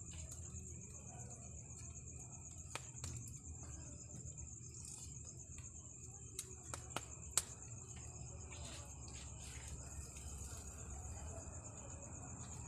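Crickets chirring steadily in a single high-pitched band, with a few sharp clicks around the middle.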